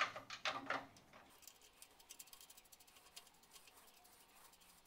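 A few light metal clicks and clinks in the first second as a steel piece is handled against a steel welding table, then only faint, scattered small ticks.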